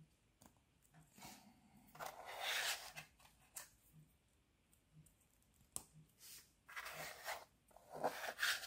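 3D-printed plastic puzzle parts being handled and pushed together by hand: rubbing, scraping and small clicks of plastic on plastic, louder about two seconds in and again near the end.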